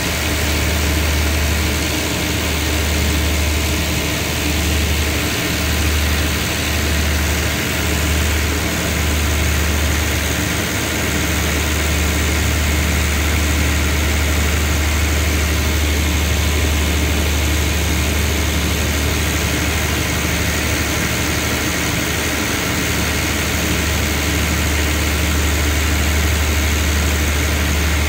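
Diesel engine of a standing passenger train idling, a steady low hum that does not change in pitch.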